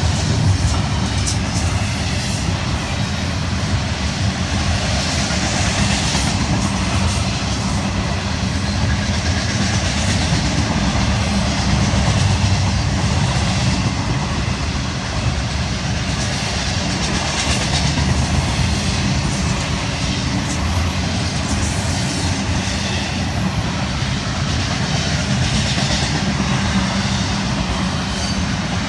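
Freight train cars rolling steadily past close by: a continuous rumble of steel wheels on the rails with occasional wheel clicks, mostly from double-stack container well cars.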